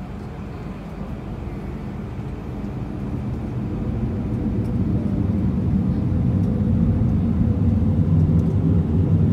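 Airbus A320 jet engines heard from inside the cabin: a low, steady rumble that grows steadily louder from about two seconds in as the engines spool up, then holds.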